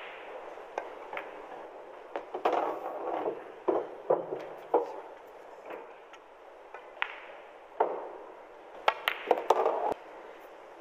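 Pool balls clacking on a pool table: the cue tip striking the cue ball and phenolic balls knocking together and off the cushions, heard as sharp clicks spread through, with several in quick succession near the end.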